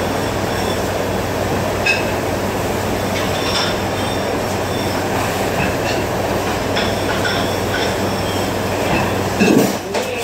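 Steady noise of a commercial dish pit: water running at the sink over a constant machine hum, with dishes clinking now and then and a brief louder noise near the end.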